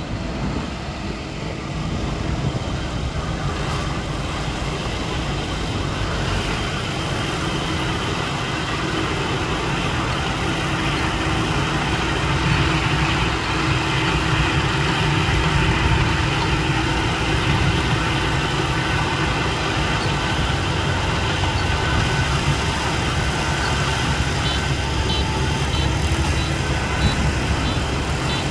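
Kubota ZR7130 combine harvester running steadily as it cuts lodged, flattened rice: a continuous drone of engine and threshing machinery that grows gradually louder.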